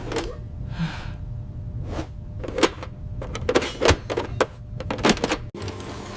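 An old tumbler lock being worked: an irregular string of sharp mechanical clicks and clacks, about a dozen, bunched between two and five and a half seconds in.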